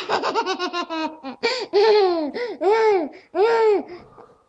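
Toddler laughing: a quick run of short giggles in the first second, then a string of longer, high-pitched laughs about half a second apart.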